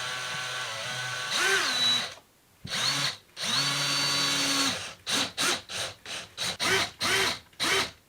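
Hand-held power drill running: one long run that speeds up before stopping, a short run, a steady run of about a second, then a string of short trigger bursts, two to three a second.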